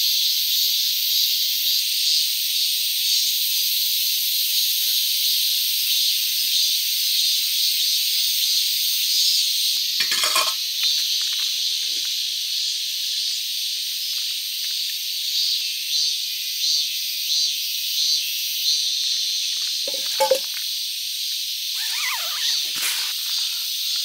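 Steady, loud, high-pitched chorus of summer insects in woodland, unbroken throughout. A few brief rustles and knocks of handling come in about ten seconds in and again near the end.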